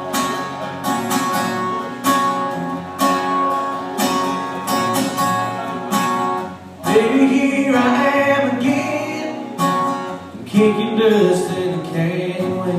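Instrumental intro of a country song: acoustic guitar strumming chords in a steady rhythm, with a melody line coming in over it about seven seconds in.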